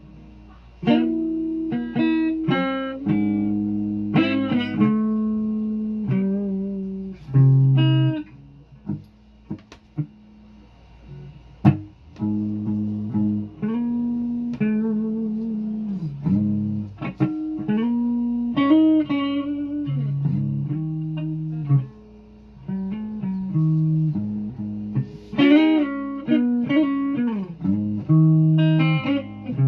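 Guitar played solo: single plucked notes and chords, each ringing and then dying away, in phrases with short pauses between them.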